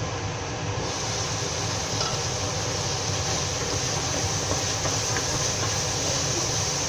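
Curry masala sizzling in a frying pan, louder and brighter once the glass lid comes off about a second in, while a wooden spoon stirs it. A steady hum runs underneath.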